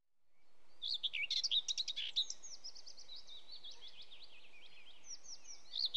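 Dawn-chorus birdsong sound effect fading in from silence: many quick, high chirps and tweets over a soft steady outdoor hiss, busiest in the first couple of seconds. It sets the scene as morning.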